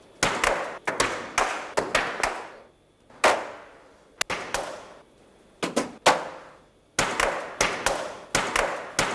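A series of sharp slapping strikes, each trailing off in a short echo. They come irregularly, in runs of two or three with brief pauses between.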